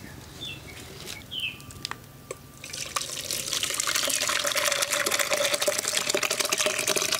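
Thick jaggery and coconut-milk kheer poured from a ladle back into a steel pot: a dense wet splashing and spattering that starts about three seconds in and keeps on.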